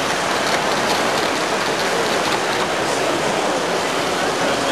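Steady steam-like hissing from a live steam model railway as a train runs past on the track, with a few faint clicks from the running gear about a second in.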